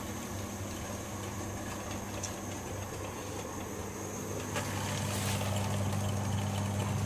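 Steady low hum over the noise of boiling liquid in a cooking pot; about four and a half seconds in it grows louder as soaked rice is tipped from a steel bowl into the boiling stock.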